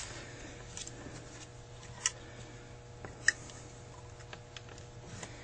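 Light clicks and taps of small metal carburetor parts being handled as the electric choke housing is fitted to a Carter AFB carburetor, with two sharper clicks about two and three seconds in, over a low steady hum.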